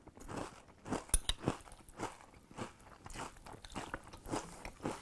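Close-up chewing of crunchy oat flake and cluster cereal in milk: a run of irregular crunches, the sharpest of them about a second in.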